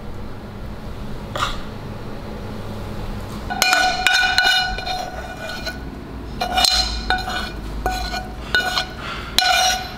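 A metal fork scraping and tapping against a frying pan while food is scooped out of it into a muffin tin. It is a run of metallic clinks with the pan ringing, starting a few seconds in and coming back in clusters.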